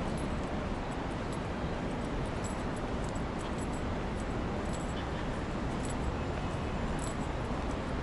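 Steady rushing outdoor noise, heaviest in the low end and unchanging throughout, with faint light ticks scattered through it.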